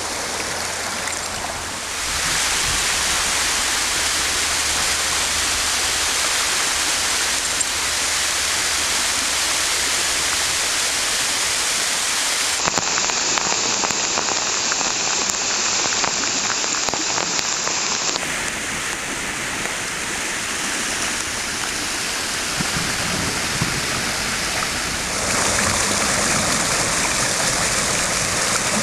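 Heavy storm rain and a brook swollen by the downpour rushing past, making a steady roar of water. The sound shifts abruptly several times.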